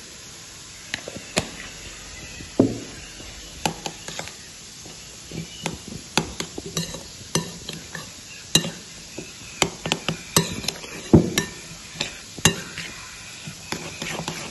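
Metal spoon stirring a thick, crumbly mixture in a ceramic bowl, clinking and scraping against the bowl in irregular taps that begin about a second in.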